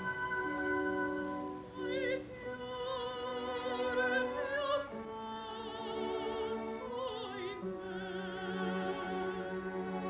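Operatic soprano singing held notes with a wide vibrato over a symphony orchestra, whose strings sustain long chords beneath her.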